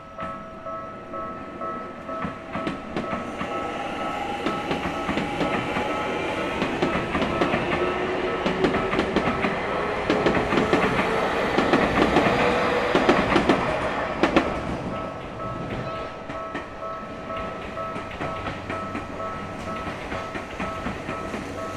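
A railway level-crossing alarm bell rings in a steady repeating pattern while an electric train passes. The train's motor whine rises in pitch and its wheels clatter, loudest about ten to fourteen seconds in, then the train sound drops away suddenly and the crossing bell rings on.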